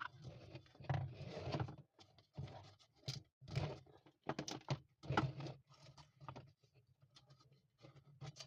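Irregular clicks, taps and scrapes of small parts and tools being handled, busiest in the first half and thinning out toward the end.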